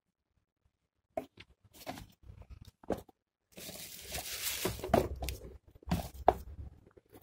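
Tissue paper in a cardboard shoebox rustling and crinkling as a sneaker is lifted out of it, with a few light knocks against the box. Scattered rustles start about a second in, with a denser stretch of crinkling in the middle.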